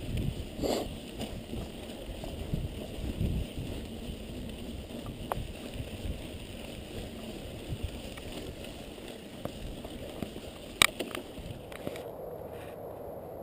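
Mountain bike riding over a rocky dirt trail: steady tyre and frame rumble and rattle, with a few small clicks and one sharp knock about eleven seconds in.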